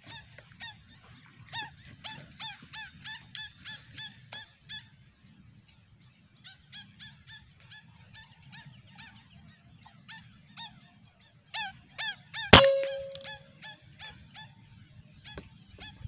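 Birds calling in a rapid series of short, sharp notes, about four a second, with a short pause near the middle. About three-quarters of the way through, a PCP air rifle fires with a single sharp crack, the loudest sound, followed by a brief ringing tone.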